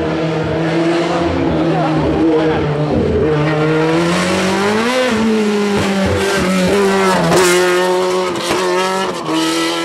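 Racing sports prototype's engine passing through a hairpin under race power. Its note holds steady, rises about five seconds in, swings quickly up and down for a couple of seconds as the revs change through the corner, then holds steady again as it pulls away.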